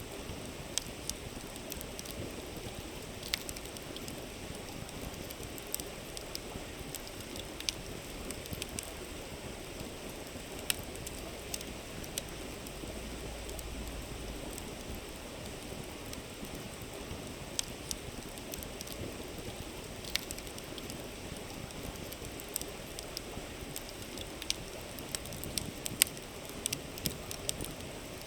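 Wood campfire crackling with sharp, irregular pops over the steady rush of a flowing river.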